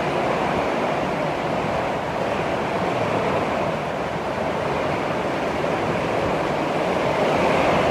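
Heavy downpour: a dense, steady hiss of rain falling.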